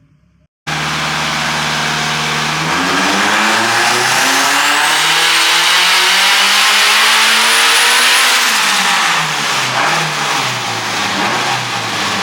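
Turbocharged K24 engine of a Honda S2000 making a full-throttle pull: it comes in abruptly under a second in, holds steady for about two seconds, then revs up for about six seconds with a high whine rising alongside, and falls back as the throttle is lifted near the end.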